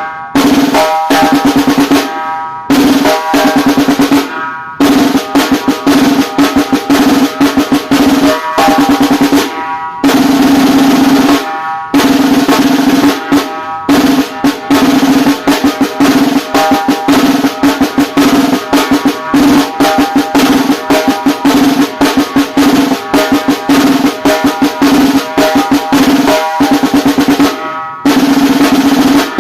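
Inexpensive snare drum played in fast rolls and rapid runs of strokes, with short pauses between the runs. Each stroke carries a ringing, pitched head tone under the snare rattle.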